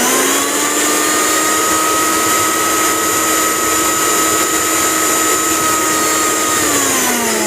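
A V-Guard 750-watt mixer grinder motor spins up with a quick rising whine, then runs at full speed with a steady high whine. About six and a half seconds in it is switched off, and its pitch falls as the motor spins down.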